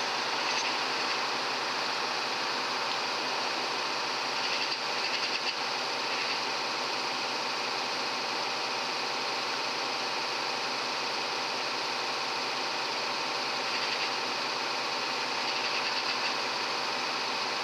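Steady electronic hiss with a faint whine from the built-in recording of an ATN digital rifle scope, unbroken by any shot; a few faint brief sounds rise above it about five seconds in and again near the end.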